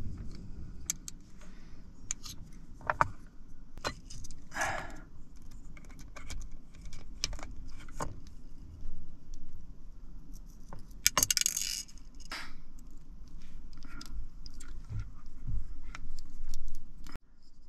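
Small metal screws and a precision screwdriver clicking and scraping as they are handled in a plastic bowl and worked into a dash-cam mounting bracket. The light clicks are scattered, with louder short rattles about five seconds in and again about eleven seconds in.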